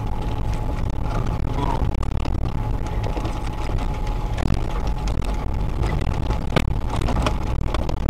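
Off-road vehicle driving along a rutted snowy forest track, heard from inside the cab: steady low engine and road rumble with a faint steady whine, and scattered knocks and rattles, the sharpest about six and a half seconds in.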